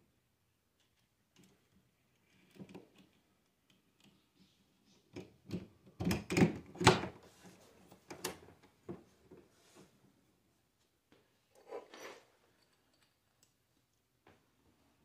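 Metal doorknob lockset being fitted into a door: scattered clicks, knocks and rattles of the knob assembly against the door and latch, heaviest about halfway through, with another short cluster of knocks near the end.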